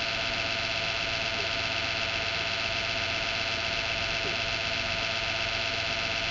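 A personal computer making a loud, steady abnormal whine: a dense mix of high, even tones over a low rumble, with no let-up. The owner takes this noise as a sign that the PC is near the end of its life.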